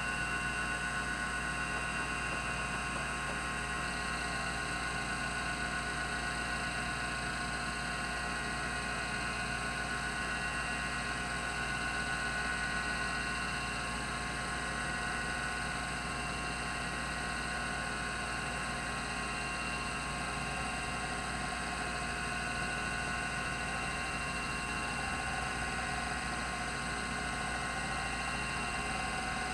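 Rodime RO352 3.5-inch hard drive spinning at its 3600 RPM: a steady whir and hum with several constant high whining tones and a hiss, and no seek clicks.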